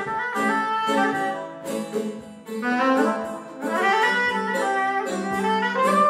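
Soprano saxophone playing a sustained melody over a plucked long-necked lute (saz).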